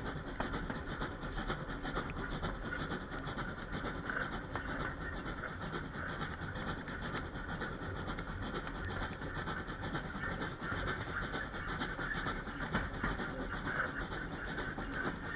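Steam-hauled passenger train heard from an open carriage window: the steady rumble and clatter of the coaches' wheels on the track as the train climbs a gradient behind a GWR 5700 class pannier tank.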